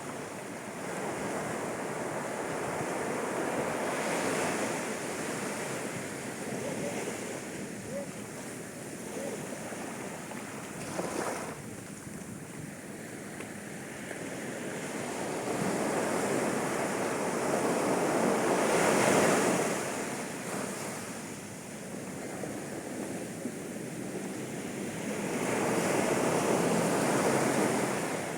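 Sea waves breaking and washing up a sandy beach at high tide, the surf swelling and fading in slow surges, loudest about two-thirds of the way through.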